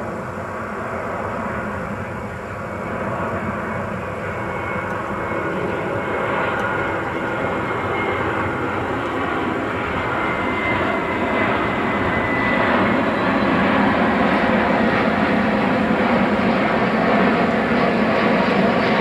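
Airbus A320 airliner on final approach, its jet engines making a steady rushing noise that grows louder as it comes nearer, with a faint high whine for several seconds midway.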